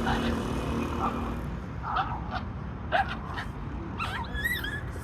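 Baladi puppy yipping in a few short sharp cries, then a high-pitched whine from about four seconds in.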